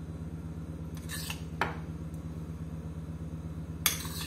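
Metal spoon clinking against ceramic and glass dishes as mango chunks are spooned out: a few sharp clinks, the loudest near the end, over a steady low hum.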